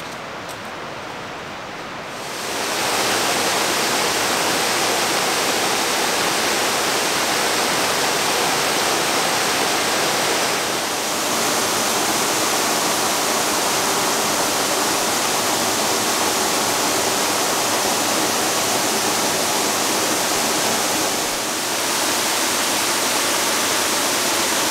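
La Salle Canyon Falls, a waterfall in a sandstone canyon, pouring with a steady, even rush. It grows markedly louder about two and a half seconds in, then holds level.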